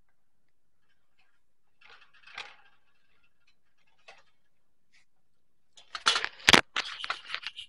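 Clicks and rattles of a wire pet cage being handled, with a faint rustle and a single tick first, then a quick, loud run of clicks about six seconds in.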